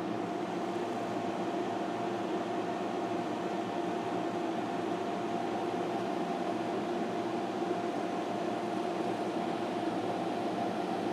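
Steady hum of an electric blower running in a small room, with a constant drone held at one pitch.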